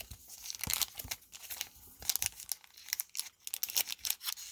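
Trading cards and the pack's wrapper being handled, with an irregular run of quick paper-and-foil flicks and crinkles as the cards are flipped through.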